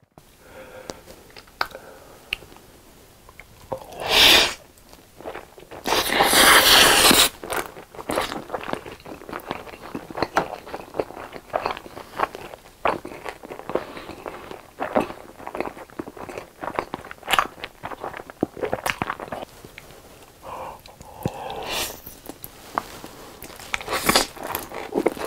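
Close-miked eating of spicy noodles: wet chewing with crunchy bites. Loud noisy slurps come about four seconds in and again for over a second from about six seconds in, with shorter ones near the end as more noodles are drawn in.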